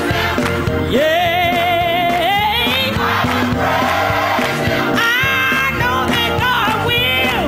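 Gospel choir and band performing with hand clapping, a lead voice holding a long note with wide vibrato about a second in, then sliding through quick vocal runs near the end.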